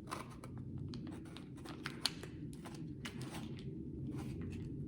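A plastic ketchup packet being handled and picked at while someone tries to open it: a run of small irregular crinkles, scratches and clicks.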